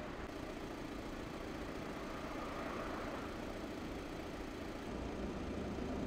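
Steady low engine noise of emergency vehicles idling.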